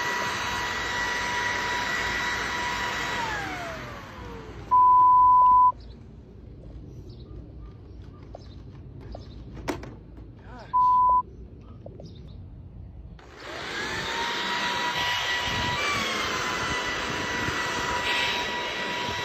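Handheld electric leaf blower running with a steady whine, then winding down with a falling pitch about three seconds in. Two loud, even beep tones follow, the first about a second long near five seconds in and a shorter one near eleven seconds. About thirteen seconds in the blower spins back up with a rising whine and runs steadily again.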